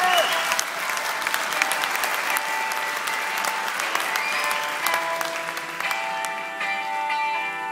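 Audience applauding as a held musical note dies away; the clapping fades as sustained instrument notes come back in about two-thirds of the way through.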